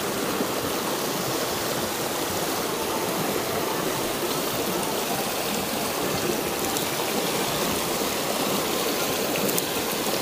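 Mountain river rushing steadily over boulders and through small rapids.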